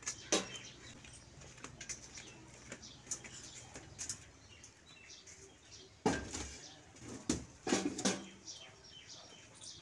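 Small birds chirping again and again, with a few sharp knocks and clatters about six to eight seconds in.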